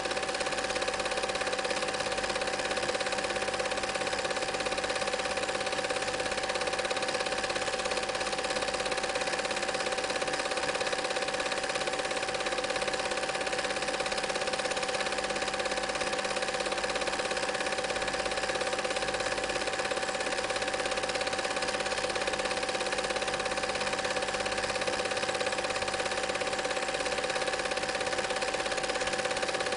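Cine film projector running steadily: the constant whirr and rattle of its motor and film-advance mechanism, with an unbroken hum-like tone.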